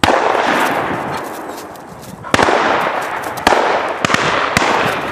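Shotgun shots at flying pheasants: three loud blasts, the first right at the start, then about two seconds later and a second after that. Each report rolls away in a long fading echo, and a few fainter, more distant shots follow near the end.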